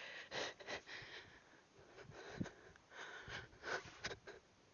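A woman breathing hard in short, quick breaths while doing burpees, out of breath from the effort, with a soft thump about two and a half seconds in.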